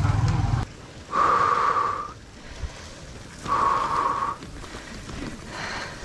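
Cyclist breathing: two long breaths about two seconds apart, each about a second long. A low steady hum cuts off within the first second.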